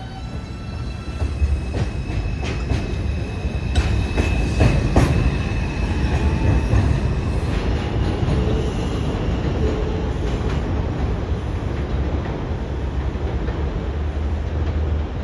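New York City Subway 2 train of R142 cars pulling out of the station, its low rumble growing about a second in. Thin wheel squeal and a few sharp rail-joint clicks come in the first five seconds, then the train runs on in a steady rumble.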